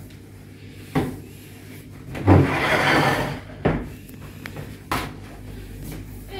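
Wooden dining chairs knocking and scraping on a parquet floor as they are moved aside during sweeping with a broom: a few separate knocks, and one longer scrape about two seconds in that lasts about a second.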